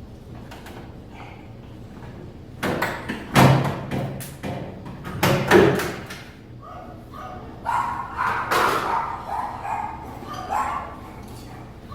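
A dog barking repeatedly, a run of loud barks starting a little under three seconds in and trailing off into softer ones.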